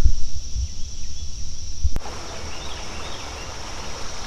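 Steady high-pitched insect drone, with low thumps on the microphone for the first two seconds. About two seconds in, the sound cuts abruptly to the even rush of a flowing creek with birds chirping, while the insects carry on.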